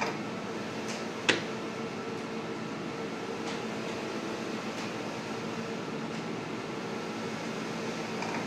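Steady ventilation hum in a kitchen, with a few light knocks on the countertop while dough is shaped; the sharpest knock comes a little over a second in.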